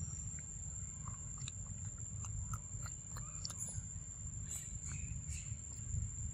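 Macaque chewing and biting a slice of soft yellow fruit: small scattered clicks and smacks of its mouth. Under it runs a steady low rumble and a thin steady high whine.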